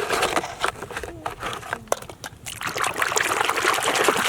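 Water running and splashing as small plastic toy guns are rinsed clean, with many small ticks and knocks through it.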